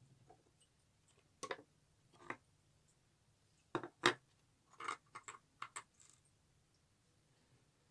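Small plastic Lego pieces being set down and handled on a hard tabletop: a string of about ten sharp clicks and knocks, loudest a little over halfway through.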